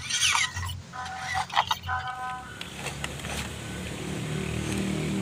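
Small electric motor and gearbox of an RC crawler whirring steadily as it climbs a dirt mound, coming in about halfway through and growing slightly louder. Short, steady-pitched calls sound in the first two seconds.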